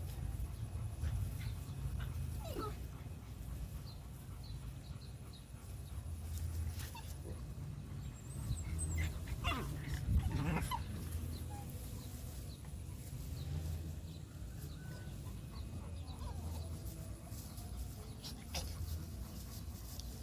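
A dog whining in a few short, wavering calls, the loudest about ten seconds in, over a steady low rumble.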